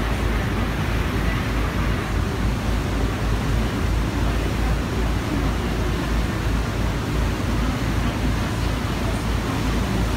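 Passenger boat under way: its engines running steadily under the rush of the churning wake, with wind buffeting the microphone in an uneven low rumble.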